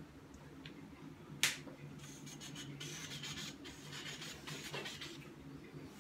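A single sharp click, then a few seconds of rustling and rubbing handling noise as clothing moves close to the microphone, over a steady low hum.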